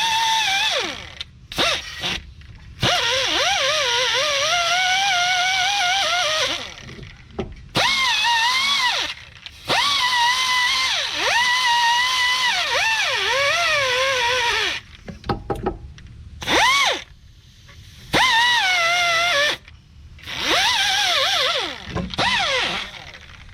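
Power drill spinning a wire brush to scour rust and build-up from the hub bore. It runs in repeated bursts with sudden stops, a motor whine that sags and recovers in pitch as the brush is pressed in, over a scratchy hiss.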